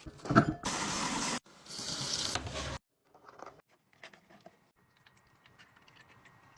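Items being handled while restocking a mini fridge: two short spells of hissing, rustling noise that start and stop sharply in the first three seconds, then a few light taps and clicks.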